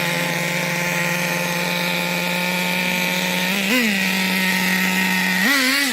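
Small nitro RC car engine running steadily at a high idle, blipped up in revs twice: briefly about three and a half seconds in, and again near the end. Its tuning is way too rich.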